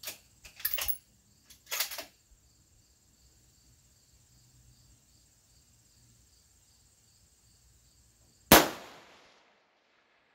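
A single .223 Remington rifle shot about eight and a half seconds in, sharp and loud with a tail that dies away over about a second. In the first two seconds there are a few softer knocks and rustles, over the steady chirping of insects.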